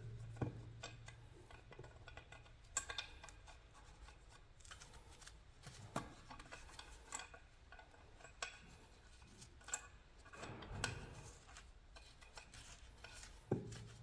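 Hand-tool work on small metal parts: scattered clicks and light knocks, a few seconds apart, over faint rubbing and scraping.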